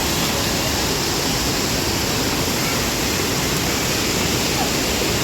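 Rushing water from a waterfall and fast river: a steady, even roar of noise that does not change.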